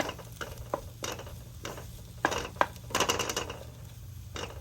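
Metal spoon or spatula clinking and scraping against a cooking pan as a potato filling is stirred, in irregular strokes with a busier run of scraping about two to three seconds in, over a steady low hum.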